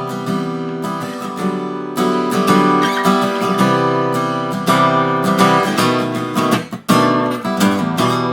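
Sigma 000TCE acoustic guitar, with a solid Sitka spruce top and tilia back and sides, strumming ringing chords. The sound breaks off briefly about seven seconds in, then the strumming resumes.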